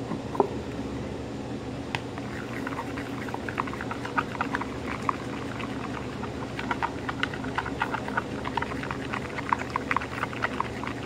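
Shampoo-and-salt slime being mixed by hand in a plastic bowl: rapid, irregular wet squelching and clicking that starts about two seconds in, over a steady low hum.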